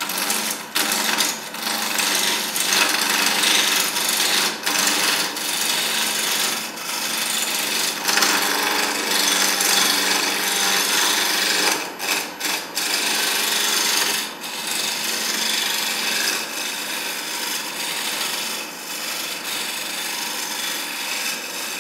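Record Power wood lathe spinning a squarish wooden blank while a hand-held turning tool makes the first roughing cut into it: a continuous rough scraping of tool on wood over a faint steady motor hum, broken now and then by short drops.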